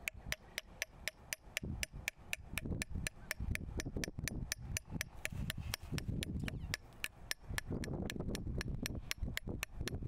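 Steel open-end wrench tapping gasket paper against the edge of a metal pipe flange, a steady run of sharp taps about four a second, cutting the gasket out along the flange edge.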